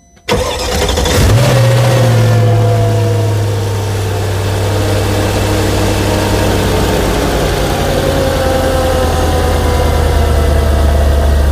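Mercedes-Benz SL55 AMG's supercharged 5.4-litre M113K V8 starting a moment in, its revs flaring up briefly then falling slowly and settling into a steady idle. This is the first run after new belt pulleys and fresh serpentine and supercharger belts were fitted.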